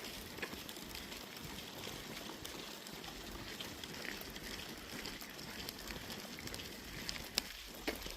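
Pileated woodpecker pecking at a tree: scattered single knocks at an irregular pace, the sharpest about seven seconds in, over a faint steady forest hush.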